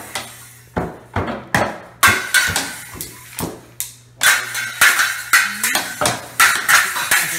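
A child beating a Minnie Mouse toy drum kit with drumsticks: uneven, rapid hits on the small drums and a ringing toy cymbal, with a short pause just before four seconds in and then a flurry of hits.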